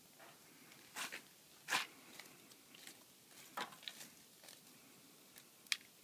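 Christmas tree burning, crackling with scattered sharp pops at irregular intervals; the loudest pops come about two seconds in and near the end.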